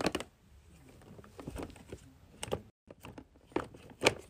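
Hands rummaging through a drawer full of silicone pop-it fidget toys: irregular soft knocks, clicks and rubbing as the toys are pushed and shifted against each other and the plastic drawer, with a few sharper knocks.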